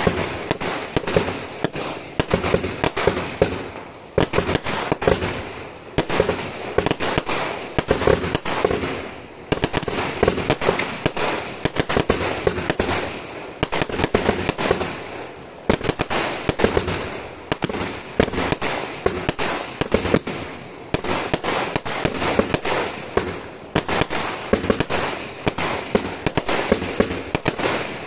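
Aerial fireworks going off in rapid succession: a dense run of bangs and crackling bursts, one after another, with only brief lulls.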